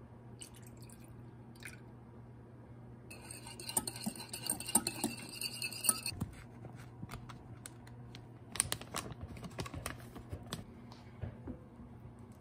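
Wire balloon whisk beating a wet cake batter in a glass mixing bowl, with rapid clinking against the glass for a few seconds. After a short pause comes a second, shorter run of clinks and taps.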